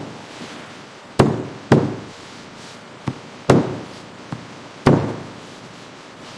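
Wooden planks knocking and banging against each other: a series of sharp knocks, about four loud ones and two lighter ones at uneven intervals, each with a short ringing tail.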